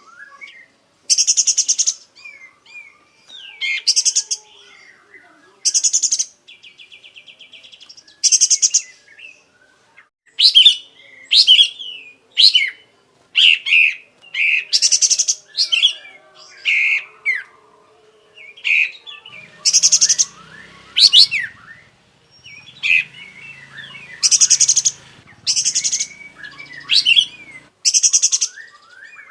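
Kapas tembak songbird in vigorous song, pouring out its repertoire: loud, high, buzzy rattling phrases repeated every second or two, with quick sharp chirps and slurred whistled notes between them.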